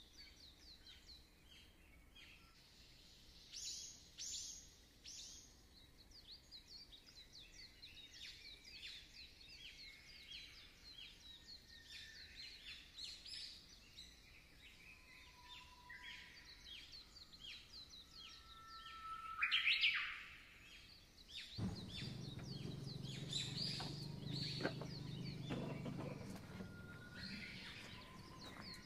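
Many birds chirping and calling in short, overlapping notes, with one louder rising call about two-thirds of the way in. A low steady rumble joins under the birdsong a little later and fades near the end.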